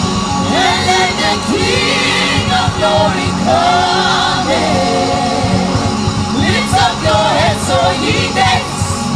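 Live gospel band music with a group of singers singing together over keyboard and band, voices gliding up and down in pitch.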